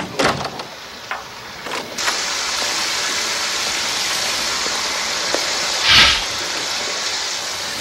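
Shower water running as a steady hiss that starts about two seconds in, with a brief louder swish about six seconds in as the shower curtain is pulled aside.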